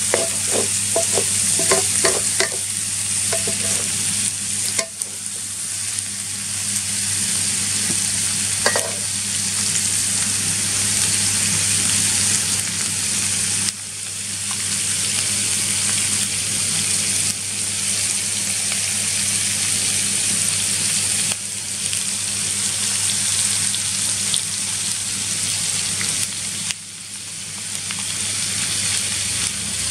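Pieces of freshwater eel sizzling steadily in hot oil as they stir-fry in a wok, with a few metallic clinks of the stirring utensil against the wok in the first few seconds and a steady low hum underneath.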